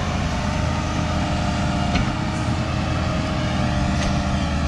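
Diesel engine of a Kobelco SK120 Mark IV hydraulic excavator running steadily while it digs, with a couple of faint clicks.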